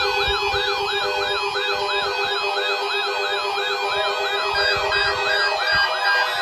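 Weather radio warning alarm sounding for the NOAA Weather Radio tone alert test: a fast electronic warble rising and falling about three times a second over steady tones. A pulsed beeping tone joins it about four and a half seconds in.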